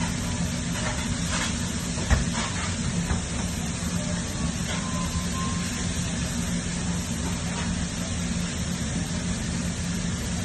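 Steady mechanical hum under an even hiss, with one sharp knock about two seconds in.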